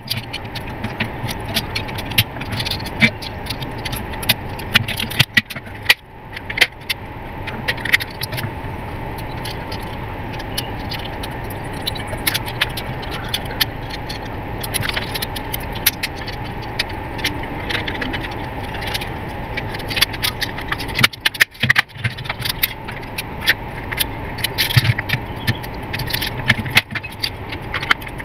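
Handling noise from taking apart a digital clamp meter: frequent small clicks, rattles and scrapes of its plastic case and circuit board, over a steady background hum.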